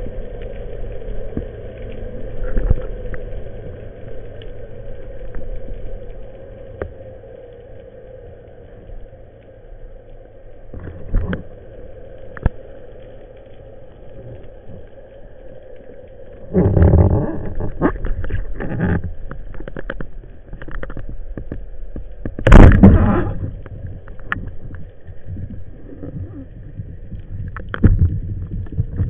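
Underwater sound picked up by a camera in a housing on a speargun: a steady muffled hum with a faint steady tone, broken by scattered knocks and rushes of noise. The loudest of these come in a longer stretch just past halfway and a short sharp burst about three quarters of the way in.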